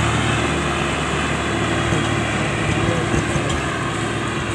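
Two diesel farm tractors running steadily under load: a Mahindra Arjun 605 DI towing a Swaraj 744 and its loaded trolley through mud. The drone holds steady and eases off slightly toward the end as they pull away.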